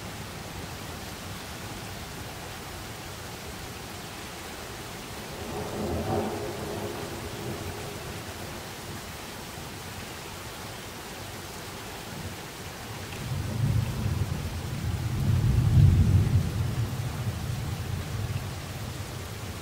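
Steady rain hiss with rolling thunder. A small swell about six seconds in, then a low rumble that builds from about two-thirds of the way through and peaks near the end.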